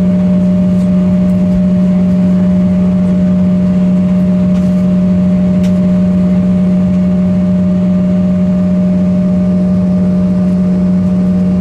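Cabin noise inside an Embraer E170 on the ground, its General Electric CF34 turbofan engines at idle: a loud, steady drone with a strong low hum.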